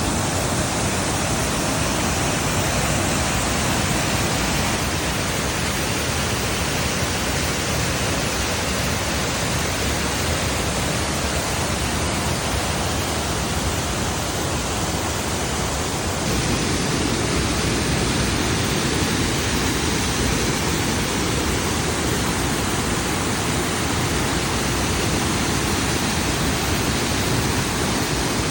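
Waterfall: a loud, steady rush of falling water that deepens a little about halfway through.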